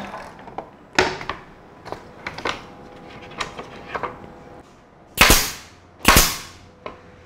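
Pneumatic staple gun firing twice, about a second apart, each a sharp crack with a short tail, driving staples into the wooden jig board. Before that, a few light knocks as the wooden pieces are set down and lined up.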